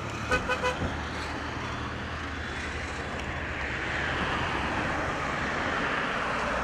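Road traffic: a steady low engine hum with a quick run of about four short beeps about half a second in, then the hiss of a passing vehicle's tyres swelling and fading away.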